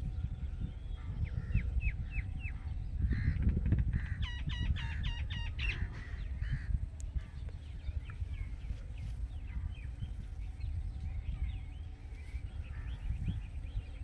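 Rose-ringed parakeet calling: a few short sharp calls, then about four seconds in a quick run of about six harsh, repeated screeches, with fainter scattered chirps later, over a steady low rumble.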